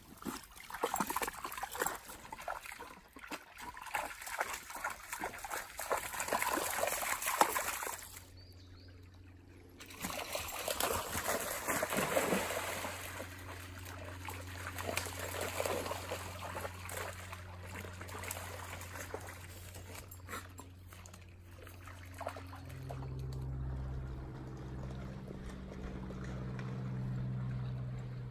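Dogs splashing and wading through a shallow stream, with the water trickling and running around them. The splashing comes in two busy stretches with a short lull between. A low steady hum joins near the end.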